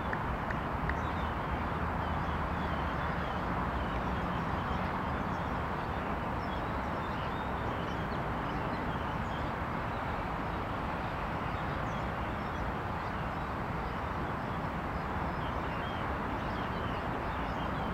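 Steady outdoor background noise at a constant level, with faint short high chirps scattered through it.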